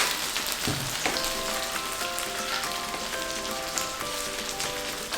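Beef and vegetable stir-fry sizzling steadily in the pan just after the heat is turned off, with a sharp knock at the start.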